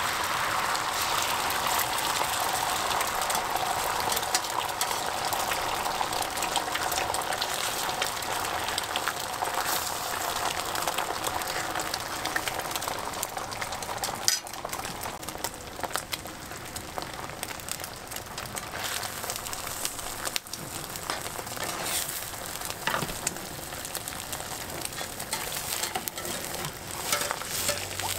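Beaten egg sizzling as it fries on a hot flat griddle, a steady hiss that is strongest in the first several seconds and eases somewhat after, with scattered clicks and scrapes of a metal spatula working the egg against the griddle.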